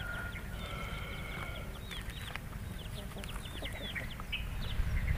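Chickens in the background: many short, high chirps and a long drawn-out call in the first second and a half, over a steady low rumble of wind on the microphone.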